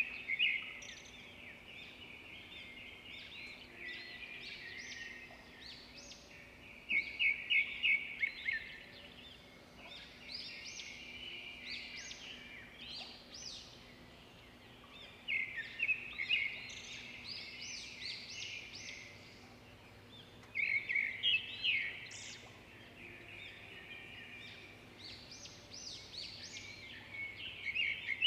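Pencil scratching on sketchbook paper in quick hatching strokes. They come in bursts of about five or six strokes a second, several times over, with lighter shading scratches in between.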